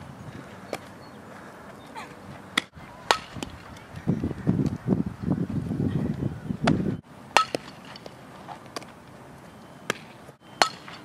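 Sharp, isolated cracks and pops of a softball being hit by a bat and caught in a leather glove during infield fielding drills, several times with gaps between them. A rough, low noisy stretch runs through the middle, and the sound briefly drops out a few times.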